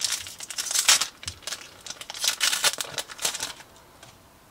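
A Japanese Pokémon booster pack's wrapper being torn open and handled, a quick run of sharp rustles that stops about three and a half seconds in.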